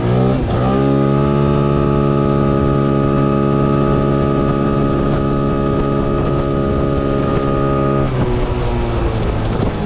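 Small single-cylinder 125cc engine, built with a 105 big-bore kit and a 150cc carburettor, revving up and then held at a steady high pitch under way. Near the end the revs drop off as it slows.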